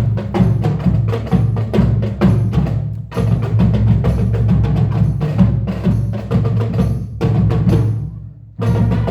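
Marching band music dominated by percussion, with rapid sharp strikes over low pitched notes. The music dies away briefly near the end and then comes back in.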